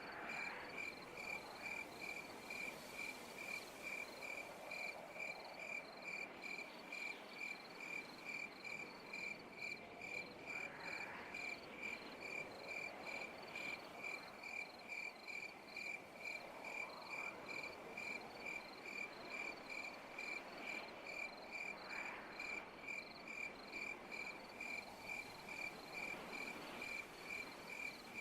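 A cricket chirping steadily at night, about two high-pitched chirps a second, over a soft hiss of night ambience with a few faint rising calls now and then.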